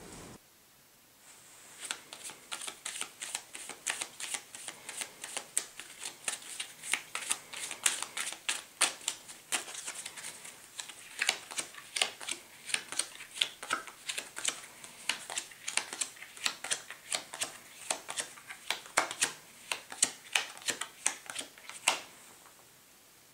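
Playing cards being dealt down one after another from a deck, a quick run of sharp card snaps at about three a second that starts a second or two in and stops near the end.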